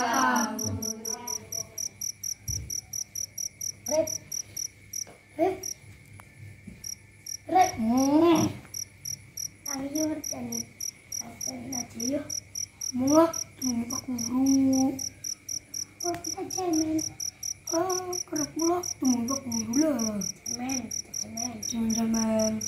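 Crickets chirping in a steady, rapid pulse through the night air, with children's voices talking on and off over it.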